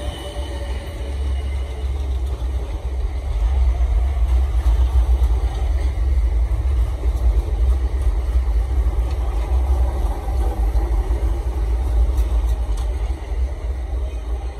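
South Western Railway Class 455 electric train passing: a steady deep rumble of wheels on the rails. It grows louder about four seconds in and eases off near the end as the last car goes by.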